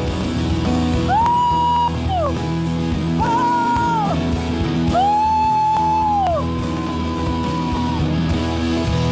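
Live worship band music: steady sustained keyboard chords under four high held notes, each swooping up at its start and sliding down as it ends.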